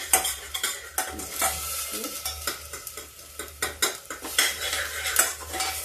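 A slotted spoon stirring and scraping masala paste as it fries in a steel pressure cooker, with many quick clinks of the spoon against the pot over a steady sizzle.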